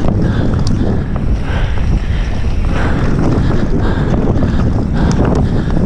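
Mountain bike descending a dirt trail at speed: a steady rush of wind on the microphone over tyres rolling on dirt, with a few sharp clicks and rattles from the bike.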